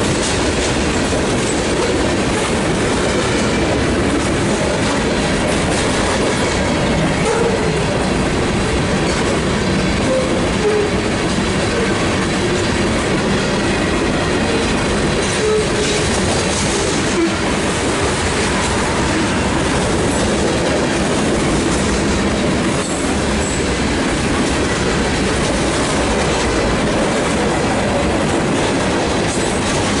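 Freight train cars of a mixed manifest rolling past close by: steel wheels running on the rails in a steady, loud, unbroken noise.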